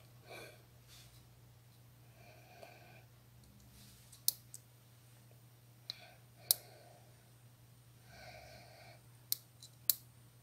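Small tactile push buttons on a W1209 digital thermostat board clicking as they are pressed: a handful of sharp single clicks spread apart, two close together near the end, over a faint steady low hum.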